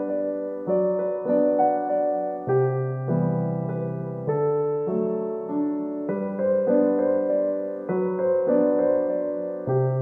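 Background piano music, slow and gentle: chords and melody notes struck every second or two, each left to ring and fade.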